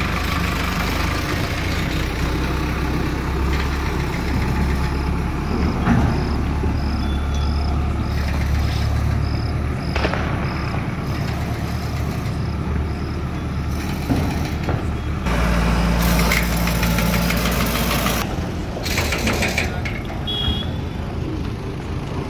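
Heavy vehicle's engine running steadily, a deep rumble that grows heavier for a few seconds past the middle. A faint high-pitched beep repeats about every two-thirds of a second in the middle stretch.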